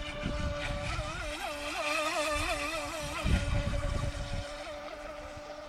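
Skytech H100 RC speedboat's small electric motor whining steadily, its pitch wavering up and down between about one and three seconds in.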